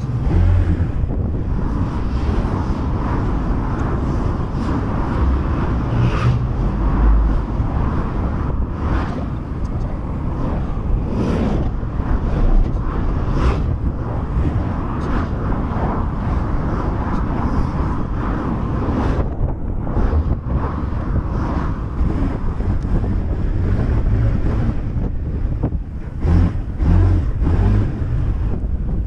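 Wind rushing and buffeting over the camera microphone on a moving Yamaha Cygnus 125 scooter, with the scooter's engine and road noise underneath.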